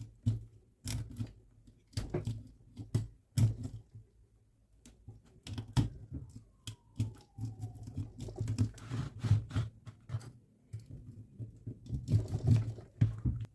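Plastic pry tool working on a Dyson V15 cordless-vacuum battery pack to free its BMS circuit board: irregular clicks, taps and scrapes of plastic against the pack, with bursts of several quick clicks.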